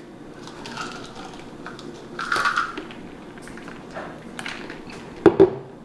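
Light clicking and handling noises of small objects, with a short soft noise about two and a half seconds in and a sharp knock a little after five seconds, as of something set down on a hard surface.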